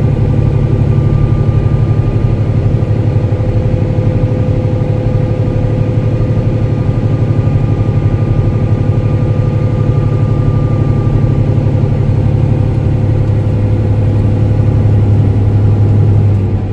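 Setra MultiClass 500 LE bus's Mercedes-Benz OM470 inline-six diesel running steadily, with a deep, even engine note. The sound drops off sharply near the end.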